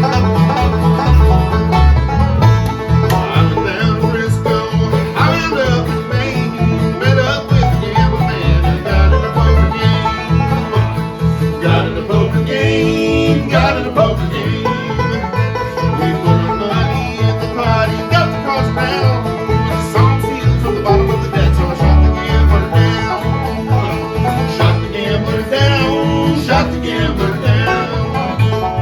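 Live bluegrass band playing an instrumental break with no singing: banjo picking over strummed guitar and a steady bass line.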